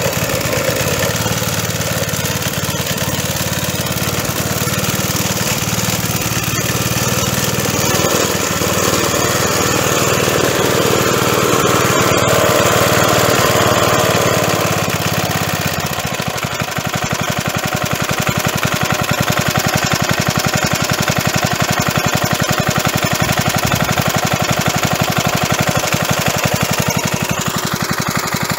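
1985/86 Briggs & Stratton 3.5 hp single-cylinder lawn mower engine running smoothly. It runs faster and louder around the middle, then about halfway through drops to a slower idle with even, distinct firing beats.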